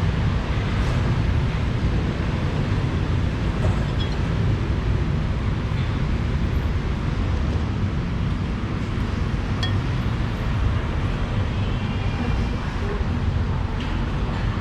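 Steady low rumbling noise, with a few faint clicks.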